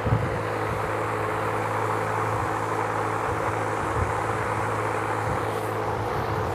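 A machine running steadily with a low, even hum, with a few light knocks over it.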